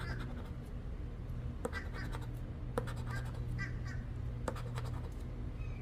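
A scratch-off lottery ticket being scratched with a coin, its edge rasping the latex coating off in short strokes, with a few sharp clicks.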